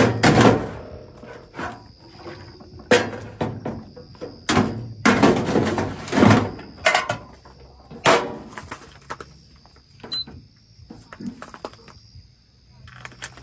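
A run of irregular knocks and clattering handling noises, about a dozen, some loud, with a longer busy stretch in the middle and a quieter spell near the end.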